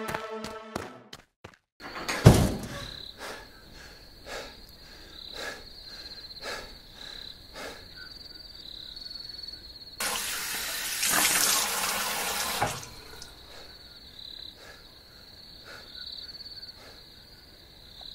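Crickets chirping in a steady high pulsing trill, with soft regular ticks. A single sharp hit comes about two seconds in, and a loud rushing noise lasts about two and a half seconds in the middle.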